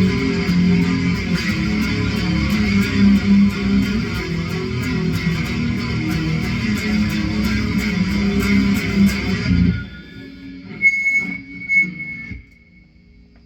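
Electric guitar played through an amp with an overdrive pedal stacked on distortion and chorus, giving a heavy, dirty tone. The chords ring on and then stop suddenly about ten seconds in. A few short noises and a thin high tone follow before it goes quiet.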